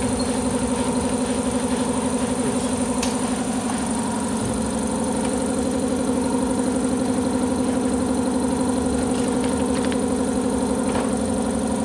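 An engine idling steadily: a continuous, even drone that holds the same speed throughout.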